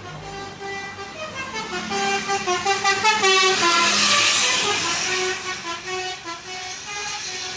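Indonesian bus telolet horn, a multi-tone musical horn, playing a quick melody of short stepped notes. The notes are loudest a few seconds in, over a swell of passing vehicle noise.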